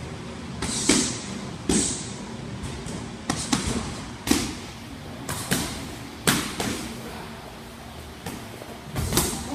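Boxing gloves punching focus mitts in combinations: about ten sharp smacks at irregular intervals, several coming in quick one-two pairs.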